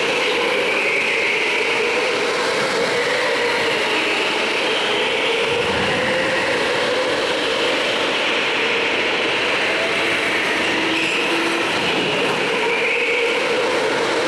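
Go-kart engine running hard and continuously, its pitch rising and falling gently.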